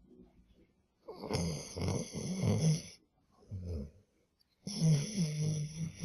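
Akita dog snoring in its sleep: a long snore starting about a second in, a short one, then another long snore near the end.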